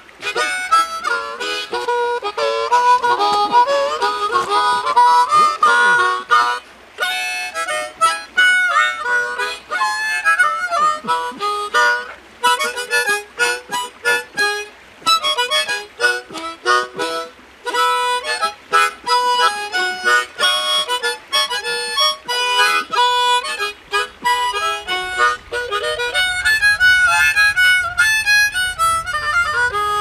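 Harmonica played solo: a lively melody with chords and quick note changes, broken by short breaths.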